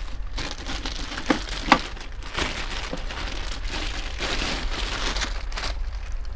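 Clear plastic bag crinkling and rustling as a bench multimeter is pulled out of it, with two sharp clicks about a second and a half in.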